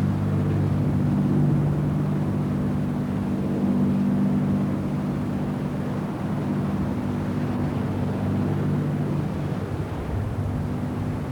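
Rescue boat's engine running steadily, a low drone with an even rushing noise over it.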